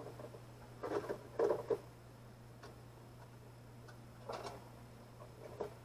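Clicks and knocks of handling as a radio is plugged back in and set on its charger: a cluster about a second in, then single taps near the middle and near the end, over a steady low hum.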